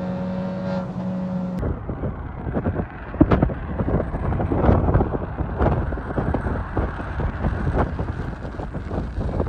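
Inside the cabin, the SEAT Leon FR's 1.4 turbo engine, fitted with a downpipe and straight-piped valved exhaust, holds a steady note at speed. About a second and a half in it cuts to strong wind buffeting the microphone outdoors, with the car faintly underneath as it approaches.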